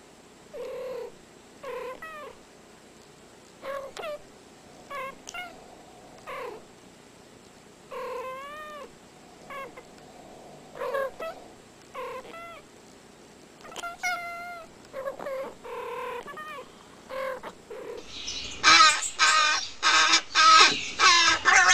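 Two domestic cats trading short meows and chirps back and forth, one short call at a time with brief pauses between. About eighteen seconds in, a young crow breaks in with loud, harsh, rapidly repeated calls that are much louder than the cats.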